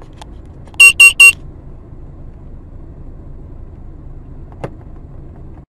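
Three quick, loud electronic beeps about a fifth of a second apart, over the steady low rumble of a car on the road, with a faint click near the end.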